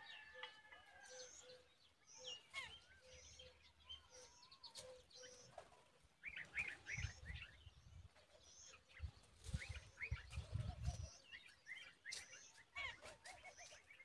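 Faint chirps and short calls of several birds, with an evenly repeated low piping note through the first few seconds and a few dull low thumps around the middle.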